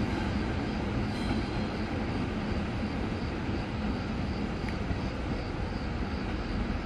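Diesel locomotives of a departing train, a D445 and a D345, running under power with a steady low engine drone and rumble of the rolling train as it pulls away.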